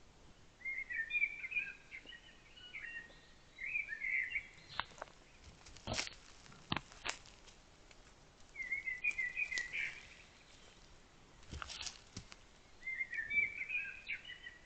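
A songbird singing short warbling phrases, three times with pauses between. In the middle come several sharp cracks or knocks.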